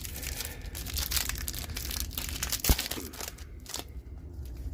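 Foil booster-pack wrapper crinkling and being torn open by hand, with a single knock about two and a half seconds in; the crinkling dies down near the end.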